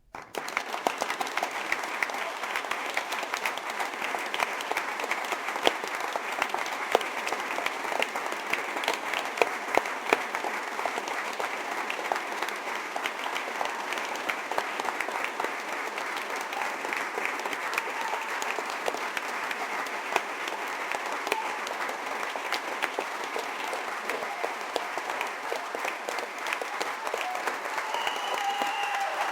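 Audience applauding: dense, steady clapping from many hands, with sharper single claps standing out now and then, starting abruptly at the outset.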